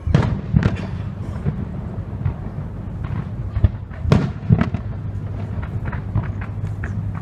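Aerial firework shells bursting in a rapid, irregular series of bangs and pops. The loudest come just after the start and again about four seconds in.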